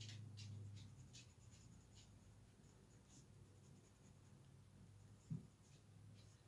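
Faint scratching of a watercolour pencil on paper in short strokes as the stamped hands are coloured in, with one soft low thump about five seconds in.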